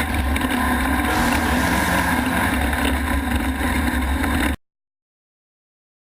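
Off-road race vehicle's engine running steadily under way, a low, loud drone. It cuts off abruptly about four and a half seconds in, leaving dead silence.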